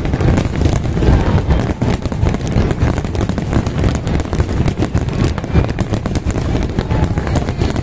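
A fireworks display at full barrage: many aerial shells bursting in quick succession, a continuous run of bangs and crackle over deep booms.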